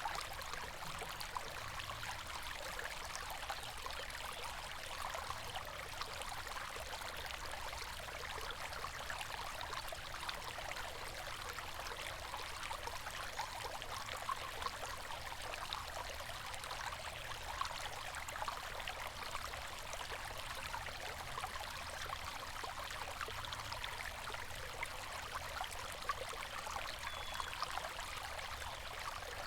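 A river flowing steadily: an even rush of water with small splashes and trickles running through it.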